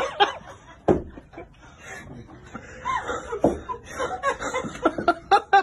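People laughing, with quick, closely spaced bursts of laughter near the end.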